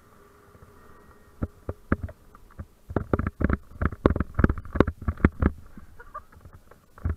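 A run of irregular, muffled thumps and knocks as a paraglider pilot touches down and runs out the landing, feet striking the ground, heard through an action camera's housing. The thumps come thickest in the middle, and a single knock follows near the end.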